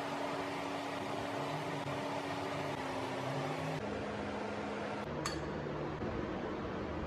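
Steady mechanical hum with a few low tones that shift in pitch now and then, and one short click about five seconds in.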